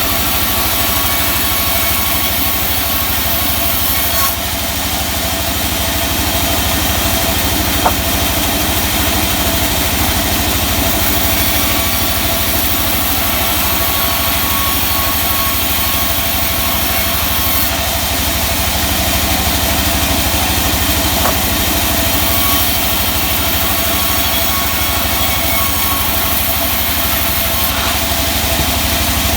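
Sawmill machinery running steadily, a continuous engine-like drone with a few steady whining tones and one sharp click about eight seconds in.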